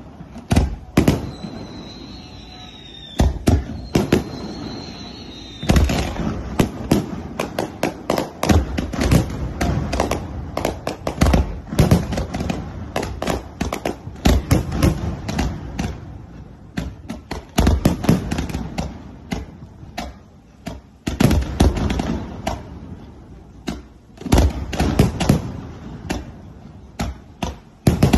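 Fireworks display: volleys of bangs from rockets and bursting shells, with two falling whistles in the first few seconds and short lulls between volleys.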